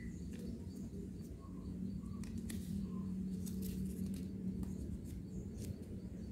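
Sheet of paper rustling and crackling in short ticks as it is folded and creased by hand, over a steady low hum.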